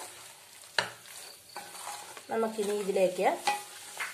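Spatula stirring prawns and masala in a non-stick kadai: scraping strokes and sharp knocks against the pan over a light frying sizzle. A little over two seconds in, a short pitched, wavering sound, rising in pitch at its end, sounds over the stirring for about a second.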